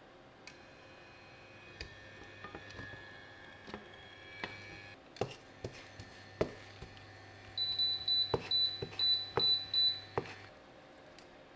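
Wooden spatula tapping and scraping against a nonstick frying pan as a thin egg omelette cooks, over a steady hum and a high whine. Near the end comes a rapid run of short high beeps, about three a second for two seconds.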